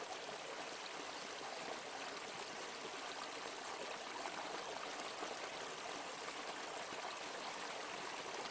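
Small rocky stream running over a low cascade: a steady, even splashing of water.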